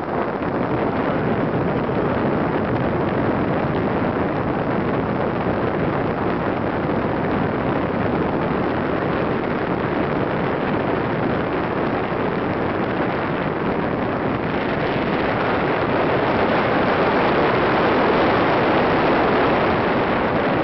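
Steady wind rushing and buffeting across the microphone as the paraglider flies, growing a little louder about two-thirds of the way through.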